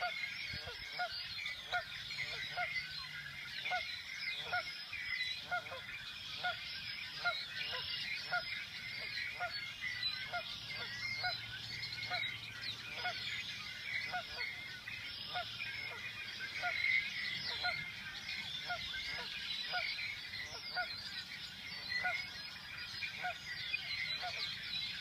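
Marsh chorus of red-winged blackbirds calling and singing in the cattails, many overlapping high calls. Under it a lower call repeats steadily, a little over once a second.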